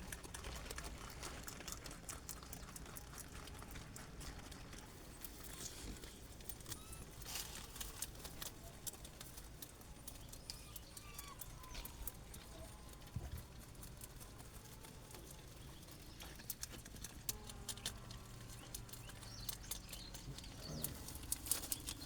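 Rabbits chewing fresh kale leaves: many small, irregular crunching clicks.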